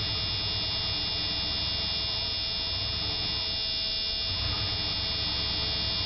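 Pickup truck engine idling steadily just after a jump start from a weak battery. It is barely holding its idle, close to stalling.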